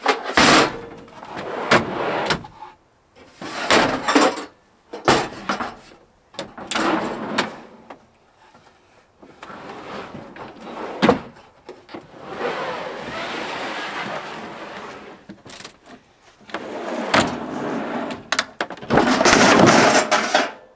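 Wooden camper pieces being slid out of a pickup truck bed across the tailgate: scraping drags broken up by knocks and bumps, with two longer scrapes past the middle and near the end.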